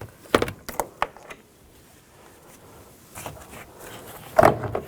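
Scattered clicks and knocks from a truck side mirror being worked free of the door after its last mounting nut is removed, with the loudest clatter near the end.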